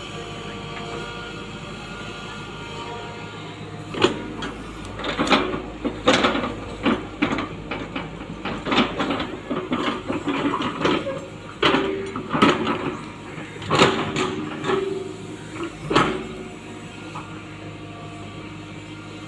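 Tata Hitachi hydraulic excavator's diesel engine running steadily, with irregular clanks and knocks from about four seconds in until near the end as the bucket digs and scoops soil.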